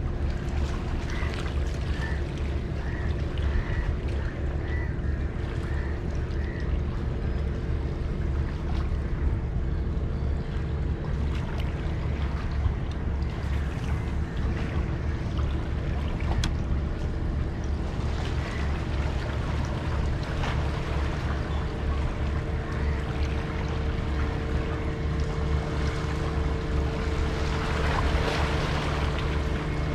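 Wind buffeting the microphone over a steady low engine hum from out on the water; the hum's note gets stronger a few seconds before the end. A short run of faint high chirps sounds in the first few seconds.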